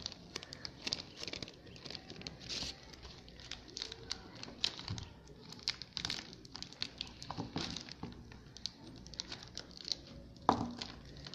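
Plastic sleeve crinkling and rustling as it is handled and taped shut, a run of many small, quiet crackles.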